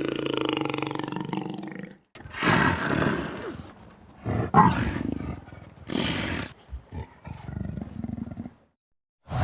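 A large animal calling: one long, low call with a steady pitch, then a string of shorter, breathy calls separated by short gaps.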